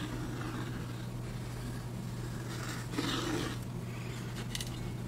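Light handling of thin laser-cut wooden pieces on a wooden table, with a brief scrape of a piece sliding across the surface about three seconds in and a few small clicks near the end, over a steady low hum.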